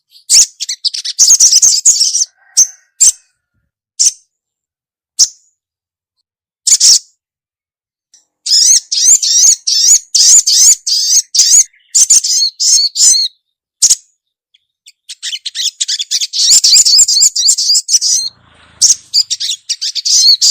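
Female little spiderhunter (sogon) calling to a male: runs of rapid, high chirps broken by short pauses, with a few single sharp notes in the first half and long continuous chattering runs in the second half.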